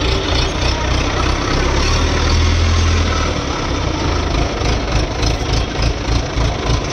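Heavy mobile crane's diesel engine running steadily at close range, its low rumble swelling briefly about two to three seconds in.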